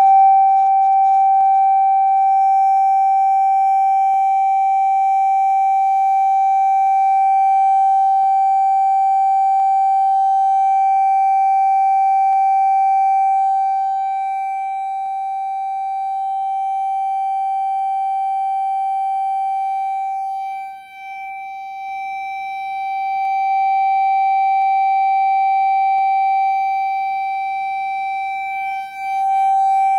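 Loudspeaker driven by a signal generator sounding a loud, steady pure tone of about 777 Hz into a glass resonance tube (Kundt's tube). This is the tube's resonant frequency: the standing wave it sets up drives the cork dust into striations. The tone dips briefly in level about two-thirds of the way through and again near the end.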